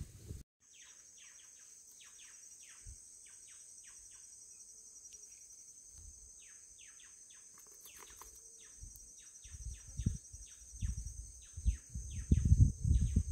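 Wild birds calling in quick, falling chirps over a steady, high insect buzz. In the last few seconds, low thumps and rumbling come in over them.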